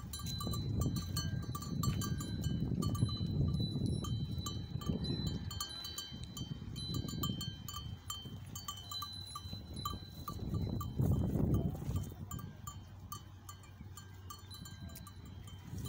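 Small bells worn by goats ringing irregularly as the animals move, many light strikes with a clear ringing tone, over a low rumble that swells and fades several times.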